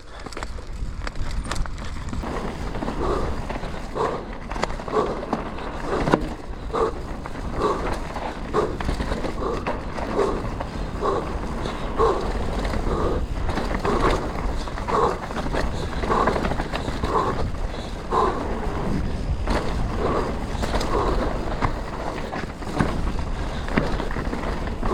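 Mountain bike rolling over a rough trail: tyre noise with scattered knocks and rattles from the bike, over a constant rumble of wind on the helmet camera's microphone. A regular sound repeats about once a second throughout.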